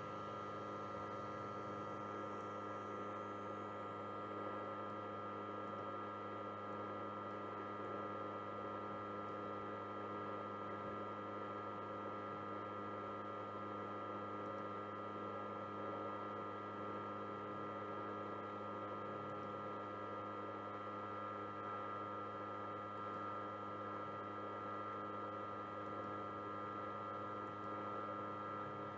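Steady electrical hum made of several constant tones over a faint hiss, unchanging throughout.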